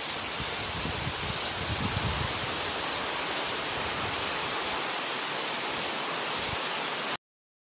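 Heavy rain pouring down through forest trees and leaves: a steady hiss, with a few low thumps in the first couple of seconds. It cuts off suddenly near the end.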